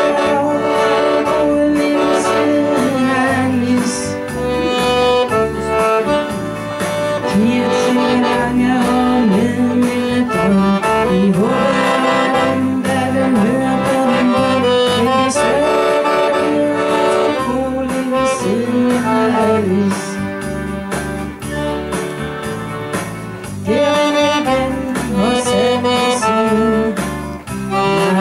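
Chromatic button accordion playing a lively tune over a steady, evenly repeating bass rhythm, with a woman singing along into a microphone.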